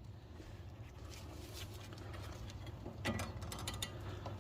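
A flat screwdriver levering against a brake caliper to push the piston back into its bore: a few light metallic clicks and scrapes about three seconds in, over a low steady hum.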